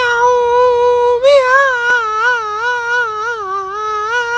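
A cat's long, drawn-out yowl. It holds one pitch for about a second, then wavers up and down without a break and sinks a little lower near the end.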